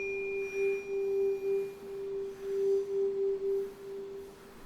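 A struck tuning fork ringing with a single steady low tone. A faint higher overtone dies away in the first couple of seconds, and the hum swells and fades as the fork moves about. It is cut off abruptly near the end, as if damped.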